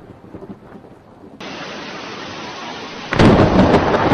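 Heavy rain hissing during a thunderstorm, with a loud thunderclap breaking about three seconds in and rumbling on.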